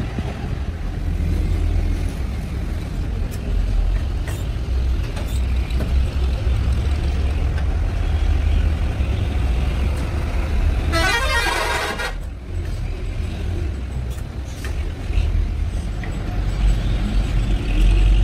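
Steady low rumble of workshop machinery running. About eleven seconds in, a brief high-pitched tooting sound is heard.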